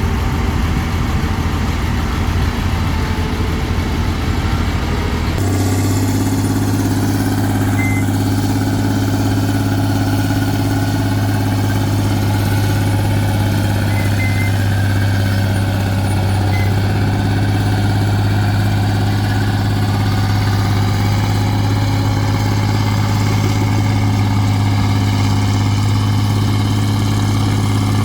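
Heavy diesel engine running at a steady speed. About five seconds in, the sound changes abruptly to a steadier, deeper hum.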